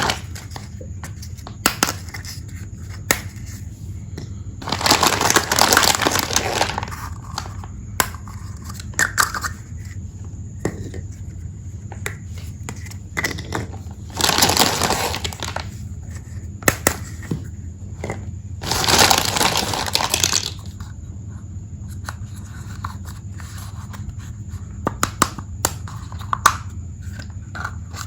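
Plastic packaging of a miniature toy tea set crinkling in three longer bursts while being unpacked, with many short clicks and taps of small plastic pieces between them, over a steady low hum.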